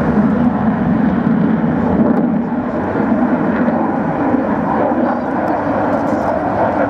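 Swiss Air Force F/A-18C Hornet's twin General Electric F404 turbofan engines, a loud, continuous jet noise as the fighter flies a display overhead.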